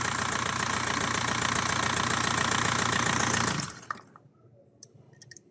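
Volkswagen SDI diesel engine idling steadily with its fast, even diesel ticking, a sound presented as normal for the SDI now that the timing has been set correctly. About three and a half seconds in it is switched off and dies away within half a second, leaving near silence with a few faint clicks.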